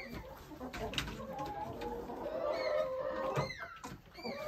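Roosting hens clucking, with a drawn-out low call under several short high calls, most of them about two and a half to three and a half seconds in.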